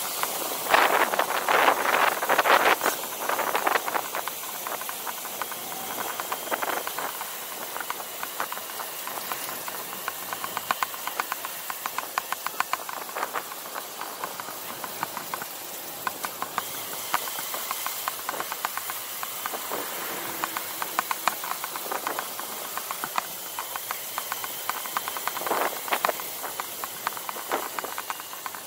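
Small hired motorbike on the move: a steady rush of wind over the camera's microphone with the engine's fast ticking running underneath, louder for a couple of seconds about a second in and again near the end.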